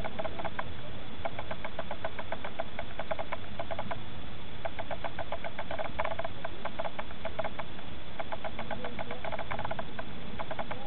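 European storm petrels churring from nest holes in dry-stone walls: repeated bouts of a rapid purring call, about ten pulses a second, each bout lasting a second or two with short breaks between.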